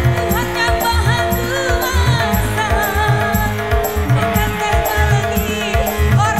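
Live band playing an upbeat pop-dangdut song through a loud sound system, with a steady pounding bass-drum beat and a woman singing the melody into a microphone.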